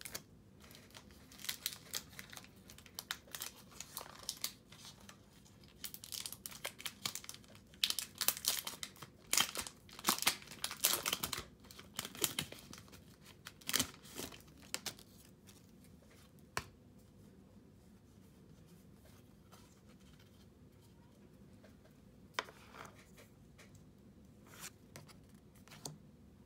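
Foil wrapper of a Pokémon trading-card booster pack being torn open and crinkled. Dense crackling and rustling for about fifteen seconds, then a few single crinkles.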